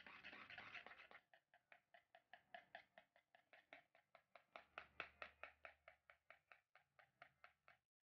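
Wire balloon whisk beating cream and powdered sugar by hand in a bowl as the cream thickens. For about the first second it makes a quick, continuous swishing, then faint, even strokes at about four or five a second, which stop shortly before the end.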